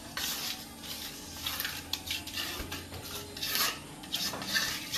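Plastering trowel scraping and spreading cement mortar onto a concrete door frame, in a series of short rasping strokes.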